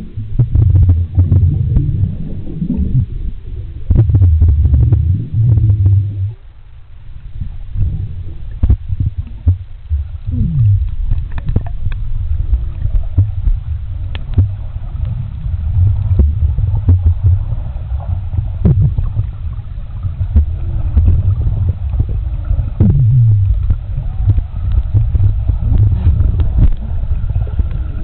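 Pool water heard through a camera held underwater: a muffled low rumble and sloshing, with many small clicks and pops of bubbles, stirred by a swimmer doing breaststroke close by. Twice, a gurgle slides down in pitch, and it goes quieter for a couple of seconds early on.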